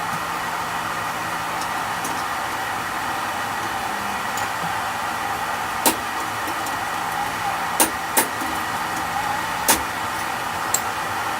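Steady whirring of a running motor or blower. A handful of sharp clicks stand out over it, about six, eight and ten seconds in.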